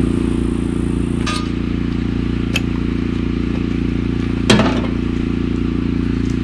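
An engine running steadily, with a few light metal clanks from the steel panel cover being handled; the loudest clank comes about four and a half seconds in.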